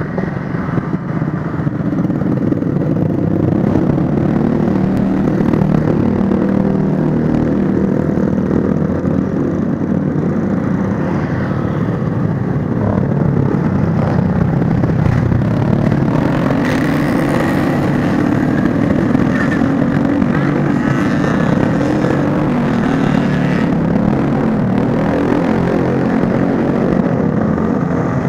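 Road traffic, mostly motorcycles with some cars, running past a railway level crossing. Their engines make a steady, continuous hum.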